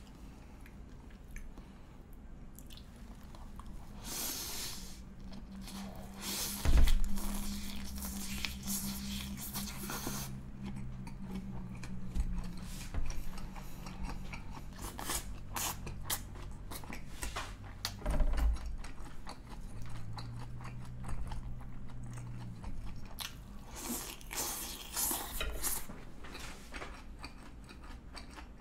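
Close-miked chewing and crunching of a mouthful of Big Mac roll with lettuce, avocado and tomato, wet crunches all through. Two louder knocks stand out, about a quarter and about two thirds of the way in.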